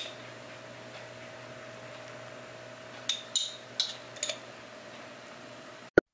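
A spoon clinking lightly against dishware, four or five quick clinks about three seconds in, over a faint steady room hum.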